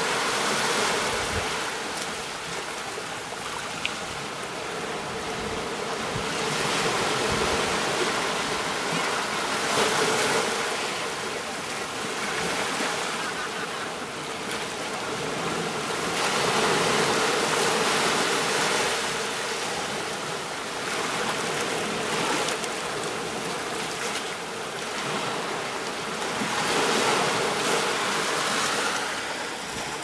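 Small waves breaking and washing up a sandy shore, the surf swelling and easing every few seconds.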